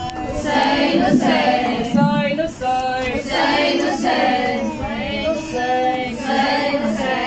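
Women reciting a noha, a Muharram lament, unaccompanied, singing in drawn-out lines with held notes.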